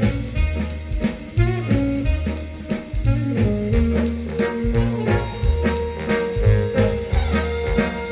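Instrumental jazz played back over Marten loudspeakers: horns over a drum kit and a bass line, with regular drum strokes throughout.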